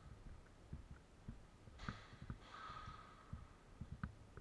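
Faint low thumps of footsteps and gear as a player moves on foot, with two short hissing noises about two seconds in and a few sharp ticks near the end.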